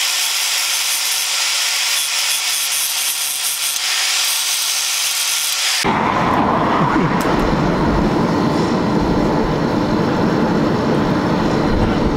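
An angle grinder with a sanding disc grinds a steel sword blade cut from a motorcycle disc brake rotor, a steady high grinding hiss. About six seconds in this gives way abruptly to the low, steady rush of a charcoal forge fire under forced air, with the blade heating in the coals.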